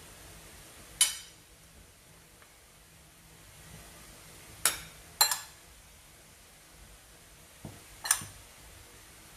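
A spoon clinking sharply against a dish four times, each clink short with a brief ring, as cooked ground pork is spooned out onto the eggplant.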